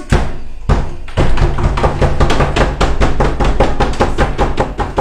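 Loud knocking and banging on a door, two separate knocks at first and then a rapid run of several blows a second from about a second in, over a steady low hum.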